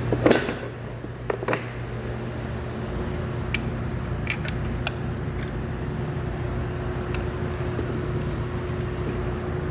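Lexus IS250's V6 engine idling steadily, with a loud clunk just after the start, two smaller knocks about a second later, and a few faint light clicks after that.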